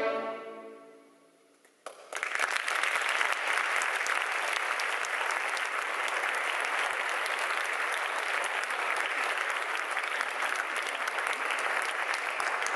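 An orchestra's final chord dies away in the hall's reverberation. About two seconds in, the audience breaks into steady applause.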